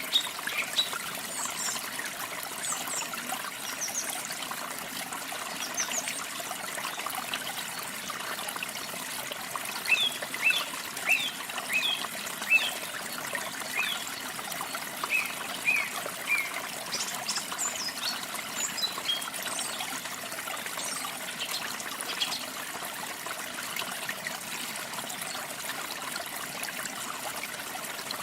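Water trickling steadily, like a small stream, with small songbirds chirping over it. The short, high chirps come in flurries, busiest in the middle of the stretch.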